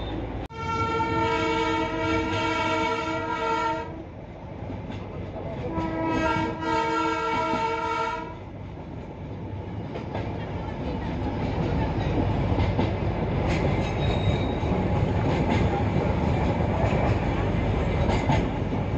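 Darjeeling Himalayan Railway narrow-gauge train sounding a multi-tone horn in two long blasts of about three seconds each. Between and after the blasts the train runs on with a steady rumble and clatter of wheels on rail, which grows louder toward the end.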